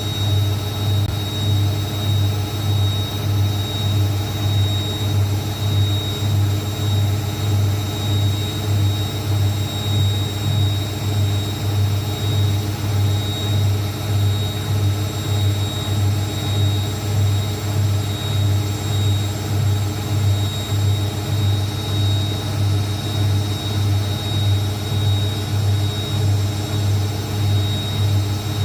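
Zanussi ZWSE680V front-loading washing machine spinning its drum at speed on the final spin, running on freshly repaired shock absorbers. It makes a steady deep hum with a thin high motor whine, swelling gently and evenly more than once a second.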